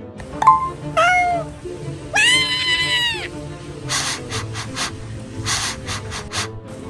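Cartoon animal-like vocal effects over background music: a short squeak, a falling call, then one long high call about two seconds in, followed by a quick run of about six short hissing swishes.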